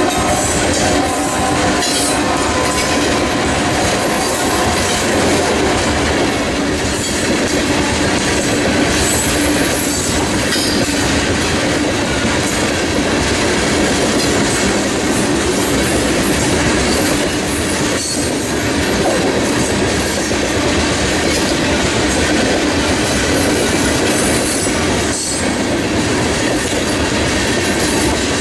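Coal train's hopper cars rolling past close by: a loud, steady rumble and clatter of steel wheels on the rails.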